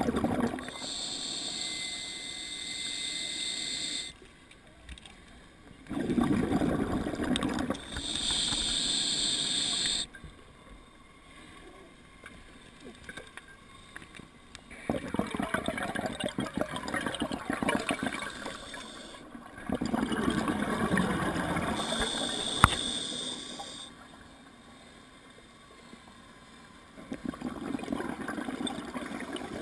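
Scuba diver breathing through an open-circuit regulator: hissing inhalations alternate with bubbling exhalations over several breath cycles, with short quiet pauses between them. A single sharp click about three quarters of the way through.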